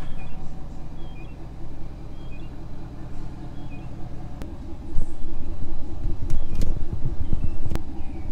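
Pickup truck engine idling steadily, with a louder low rumble setting in about five seconds in and a few sharp clicks.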